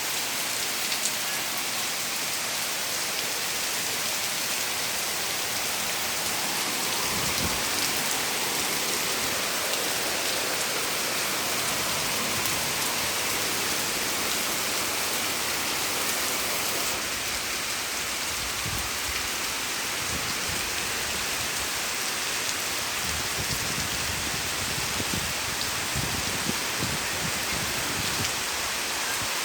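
Heavy rain falling steadily among large trees, a dense even hiss, with occasional low thuds from about a quarter of the way in.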